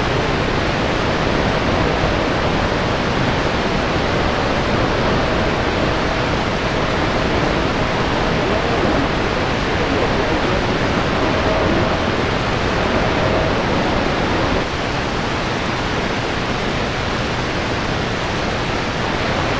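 Steady static hiss from a Grundig S350DL receiver tuned to the 27.028 MHz CB channel while no station is talking. This is the atmospheric noise (QRN) of a skip opening, with a faint whistle that comes and goes.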